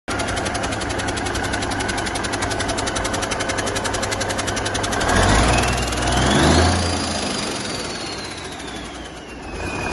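1985 Cummins NTC-300 turbocharged inline-six diesel running on a test stand: a fast, even idle clatter, then revved up about halfway through. The turbocharger's whine rises sharply with the rev and then winds slowly down as the engine falls back toward idle.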